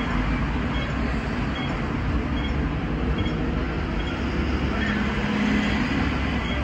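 Hong Kong double-deck tram (tram 172, an AC-drive trial car) standing at a stop, heard from on board: a steady rumble mixed with passing street traffic. A faint, regular tick comes about every 0.8 seconds, and a low hum swells briefly about five seconds in.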